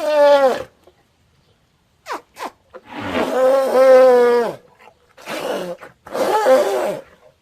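An elephant calling in a series of pitched, falling calls. There is a short call at the start, two brief squeaks around two seconds in, one long call of about a second and a half, then two shorter calls near the end.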